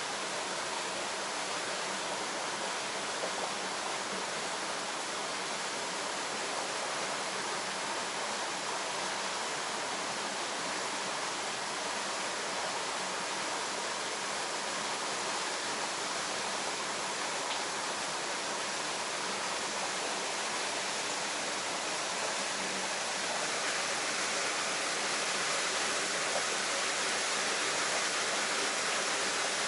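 Steady rush of stream water flowing through a narrow rock channel, a little louder near the end.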